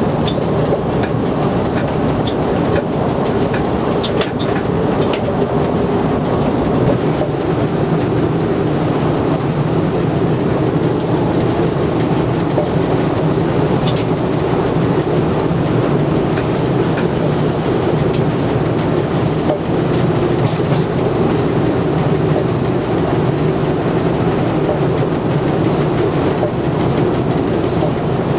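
Cab of an SNCF Z 5300 electric multiple unit running at speed: a steady rumble of wheels on rail under a low electric hum, with a few sharp clicks over rail joints in the first few seconds.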